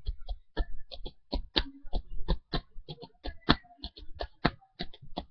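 A rapid, uneven run of soft clicks, each with a low thump, several a second.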